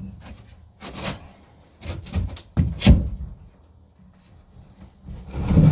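Boat fuel tank being pushed and levered out of its bay against a ratchet strap, giving a series of irregular knocks and scrapes, with a louder clunk about three seconds in.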